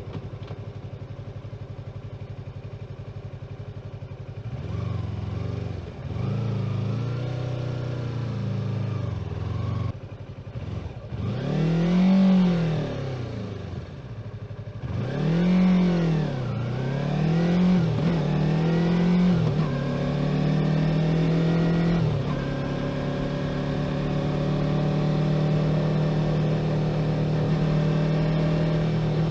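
Yamaha YZF-R3's parallel-twin engine heard from the rider's position: a low steady idle for the first few seconds, then pulling away with the engine note rising and falling several times as it accelerates, settling into a steady cruise for the last third.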